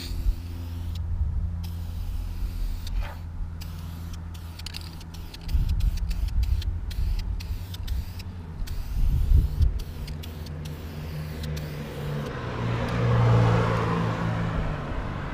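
Aerosol spray-paint can hissing in repeated short bursts as black paint is sprayed through a cardboard stencil onto an intercooler. Under it runs a steady low engine-like rumble, which swells for a few seconds near the end.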